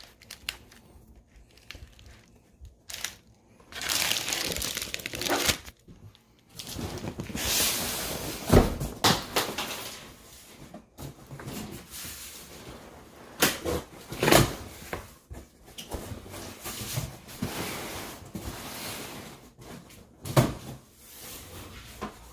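Cardboard shipping box being opened by hand: tape tearing and cardboard flaps and packing material rustling in irregular stretches, with a few sharp knocks.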